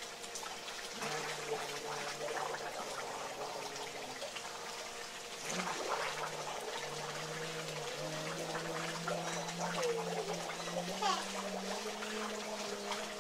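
Water pouring steadily from a sheer waterfall spout into a pool, a continuous splashing rush. A faint low held tone steps up in pitch a few times underneath, and a few brief voice sounds come through about halfway and again near the end.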